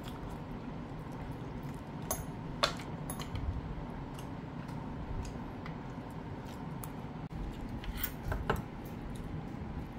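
Metal chopsticks clinking against ceramic dishes now and then during a meal: a few light clicks about two to three seconds in and a couple more near eight seconds. Steady low room noise with a faint hum lies underneath.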